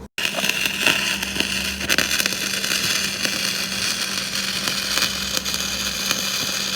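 Stick-welding arc crackling and sizzling steadily as a fillet weld is run on a T-joint, with a steady hum underneath. The rod is dragged in small C-shaped weaves.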